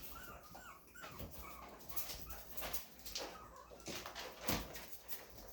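Chihuahua puppy making short, high whimpering squeaks during rough play with his littermate, like a squeaky toy, with a few small clicks and scuffles.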